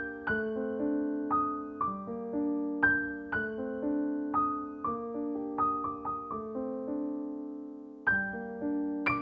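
Slow, gentle solo piano music, single notes and soft chords that ring and fade, with a brief pause about eight seconds in.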